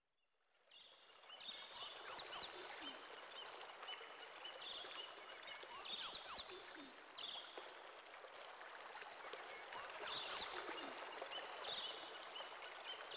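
Birdsong over a steady stream-like hiss, fading in about a second in. The same chirping phrase comes back about every four seconds, like a looped nature-sound recording.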